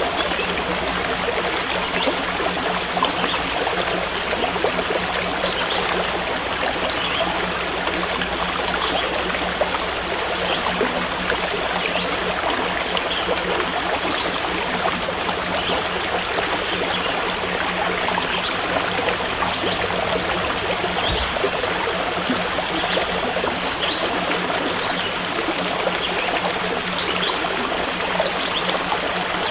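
Water of a stream running steadily, with a faint steady low hum underneath.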